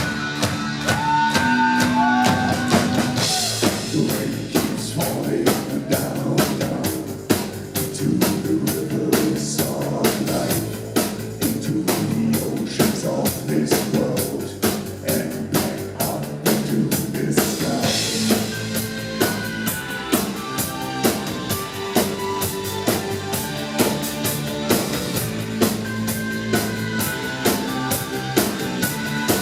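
Live band playing a song with two drummers, over a steady, driving drum beat with sustained keyboard and guitar parts.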